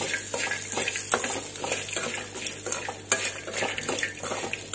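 A metal spoon stirring fried peanuts and spices in a stainless steel kadai, scraping and clinking irregularly against the pan. A light sizzle comes from the hot oil, with the gas just turned off.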